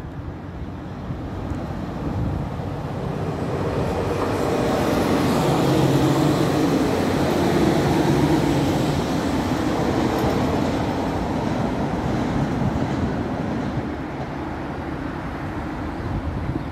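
Regional passenger train passing along the tracks below: a rumble with a steady low hum, building over the first few seconds, loudest around the middle as it goes by, then slowly fading as it moves away.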